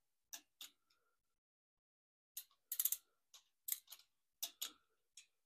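Faint metallic clicks and ticks from a torque wrench's ratchet head and socket on the oil pump bolts as each bolt is checked again at torque. Two clicks come just after the start, then after a pause of over a second the clicks come in small clusters.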